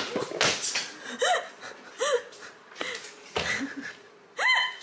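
A woman laughing breathlessly: noisy, wheezy breaths with three short high laughs between them.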